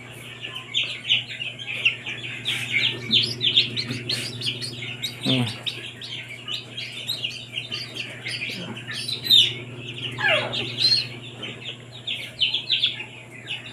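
A crowd of newly hatched Barred Plymouth Rock (BPR) chicks peeping rapidly and continuously inside an egg hatcher, over the hatcher's steady low hum.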